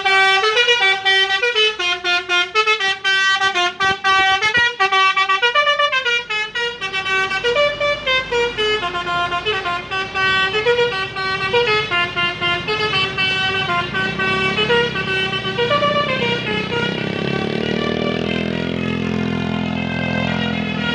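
A long-distance bus's telolet horn, a multi-tone musical horn, playing a quick tune of notes that step up and down. About two-thirds of the way in, low engine noise comes in under the horn.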